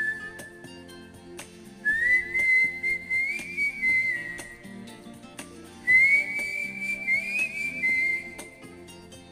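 A person whistling the melody of a Hindi film song over backing music. Two whistled phrases start about two seconds and about six seconds in, with gaps where only the backing music plays.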